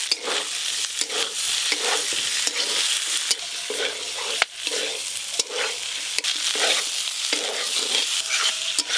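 Mixed vegetables sizzling in a metal kadai as a metal spatula stirs and scrapes them through a poppy-seed masala paste, about two strokes a second, with a few sharp clinks of the spatula on the pan.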